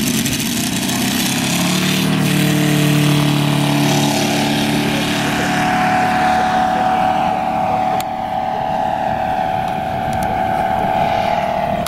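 Radial engine of a large radio-controlled aerobatic airplane running steadily as the plane takes off and climbs away.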